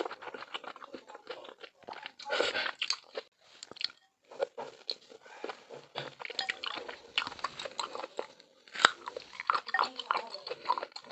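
Close-miked eating of milk malatang: irregular biting and chewing, with wet mouth clicks and smacks.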